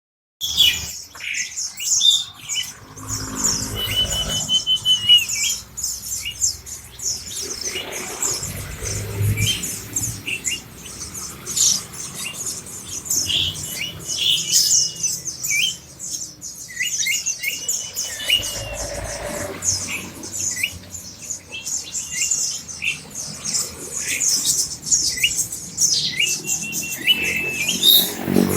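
A crowd of caged white-eyes (pleci) calling all at once: a dense, unbroken chatter of short high chirps, with repeated trilled calls rising above it every few seconds.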